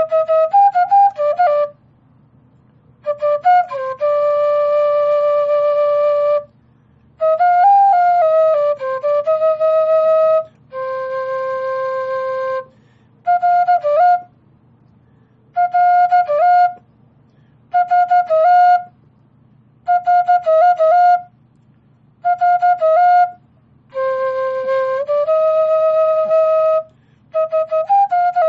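Music: a slow solo melody on a flute-like wind instrument, played in short ornamented phrases with brief pauses between them, over a faint low hum.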